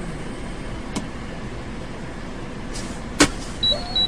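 Steady road and cab noise of a truck driving along a highway, picked up by its dashcam. There is a faint click about a second in, a sharper click about three seconds in, and a brief high beep near the end.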